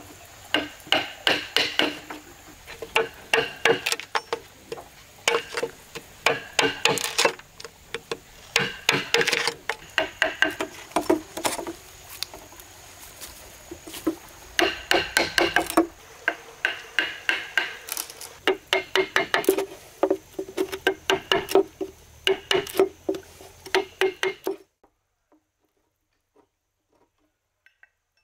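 Hammer driving a chisel into a green bamboo pole to cut slots: runs of sharp knocks, about three a second, each ringing briefly, with short pauses between runs. The knocking stops abruptly a few seconds before the end.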